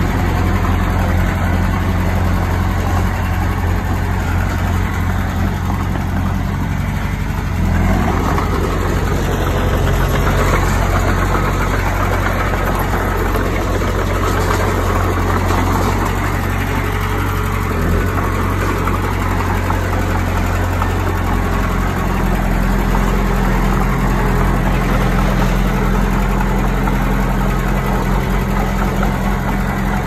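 Diesel engine of a bulldozer running steadily. Its note shifts about eight seconds in, and a noisier, rougher stretch lasts until about twenty seconds before the engine settles back to a steady hum.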